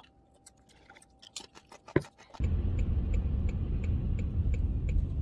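A quiet room with a few small clicks and a sharp knock about two seconds in, then from about two and a half seconds in a steady low rumble of road traffic on a wet city street.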